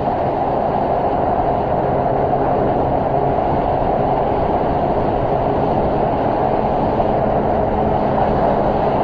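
Motorcycle cruising at a steady highway speed: heavy wind rush on the camera microphone with the engine's steady drone beneath, no revving or gear changes.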